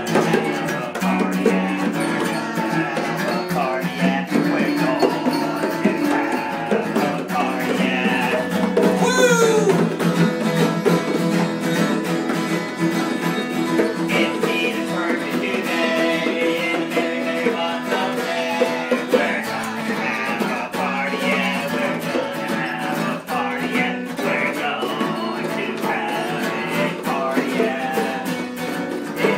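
Two acoustic guitars strummed together in a home sing-along, with a man and a girl singing a birthday song over them.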